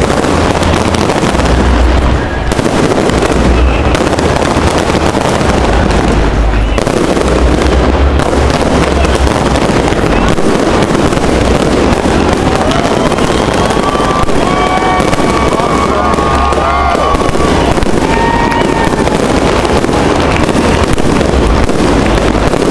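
Fireworks display going off in a dense, continuous barrage of bursts and crackling, very loud, with a steady low rumble under it.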